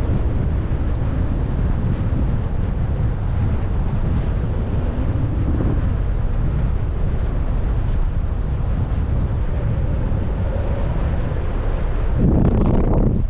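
Strong wind buffeting the action-camera microphone, a steady low rumble that swells into a louder gust about twelve seconds in.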